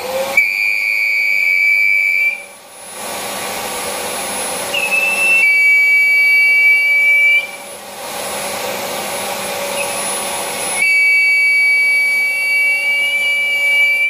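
Rowenta Compact Power Cyclonic vacuum cleaner running, with a loud, high-pitched whistle from air leaking past its filter. The whistle cuts out twice when the filter is pressed home and returns each time, leaving only the plain motor and airflow noise in between.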